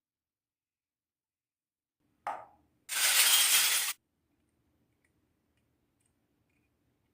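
Small plastic toy kitchen pieces being handled: a light tap about two seconds in, then about a second of loud clattering, rattling noise. The sound then stops.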